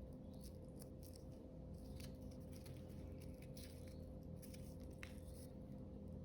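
Wood fire in a fireplace crackling faintly, with irregular small pops and snaps over a low steady hum.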